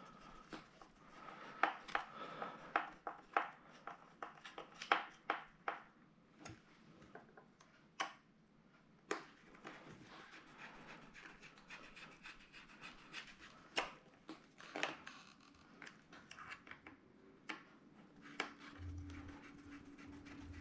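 Scattered sharp clicks, taps and light scraping of small tools and metal parts being handled during work on an RC truck's steering bell crank. A steady low hum starts near the end.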